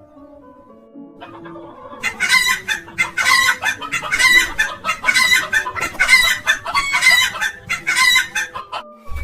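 Chickens clucking: a quick run of short calls, about two a second, starting about two seconds in. Soft background music plays underneath.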